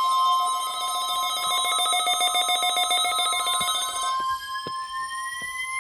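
NOAA Weather Radio's steady 1050 Hz warning alarm tone from the weekly test broadcast. Over it, weather-alert receivers sound their own rapid pulsing alarm beeps, which stop about four seconds in. A rising whine climbs in pitch through the last couple of seconds.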